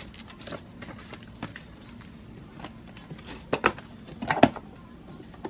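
Books, papers and small objects being handled on a wooden cabinet shelf: scattered light knocks and rustles, with a short run of louder knocks about three and a half to four and a half seconds in.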